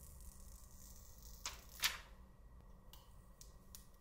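Protective plastic film being peeled off a smartphone: two short rustling swishes close together about a second and a half in, followed by a few faint ticks.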